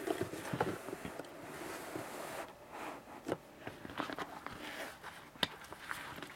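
Handling noise from a cardboard box being moved about: scattered light knocks, scrapes and rustles, with a sharper click about five and a half seconds in.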